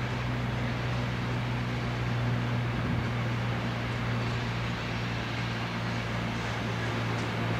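Freight train rolling slowly through a station yard, a locomotive hauling tank and container wagons: a steady low hum under an even rushing noise, with no sharp knocks or horn.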